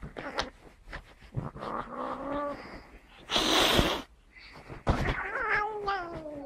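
Agitated domestic cat yowling and hissing: a short rising yowl, a loud hiss about three and a half seconds in, then a long yowl that falls in pitch near the end.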